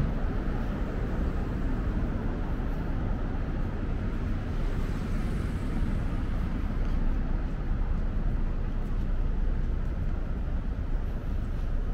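Steady city street traffic noise, an even low rumble of passing vehicles with no single standout event.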